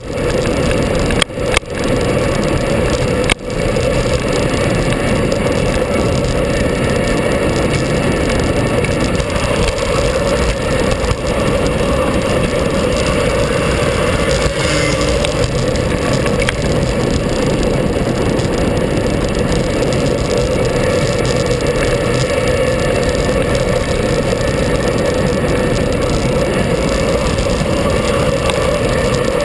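Steady rush of wind and road noise on a vehicle-mounted camera's microphone, over a constant engine drone, while riding a winding mountain road. The sound drops out briefly three times in the first few seconds, and an oncoming motorcycle passes about halfway through.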